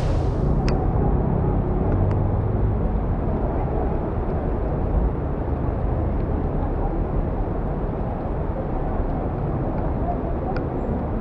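Muffled city street ambience: a steady low rumble of traffic with a faint murmur of voices and no rain hiss.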